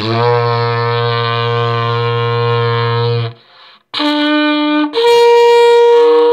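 Lip-blown coiled ceramic pottery horn, the deep-toned 'little deep throat', sounding a long low note for about three seconds, then after a short break a brief higher note and a still higher note held on. It sounds kind of like a shofar.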